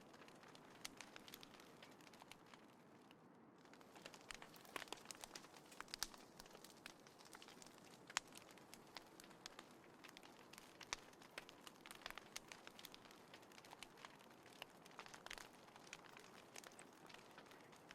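Quiet crackling of a small wood fire in a compact folding fire stand: irregular sharp pops and snaps over a soft, steady hiss.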